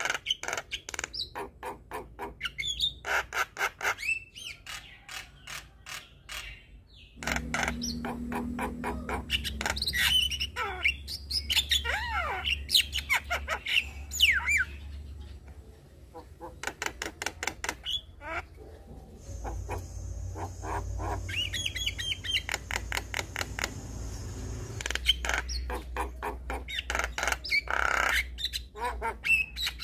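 Javan mynas chattering and singing: fast runs of harsh repeated notes mixed with gliding whistles. The recording changes abruptly a few times, and a low hum runs underneath.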